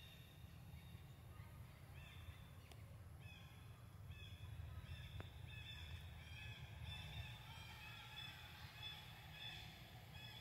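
Faint, repeated short high-pitched chirping animal calls, several notes a second from about two seconds in, over a low steady rumble.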